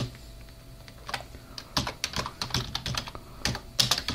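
Typing on a computer keyboard: a run of quick, irregular key clicks, sparse at first and coming faster from about a second in.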